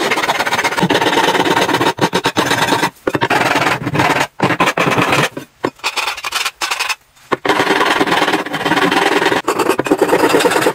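Hand file scraping back and forth along the edge of a metal bracket to smooth it, in long runs of strokes broken by a few short pauses.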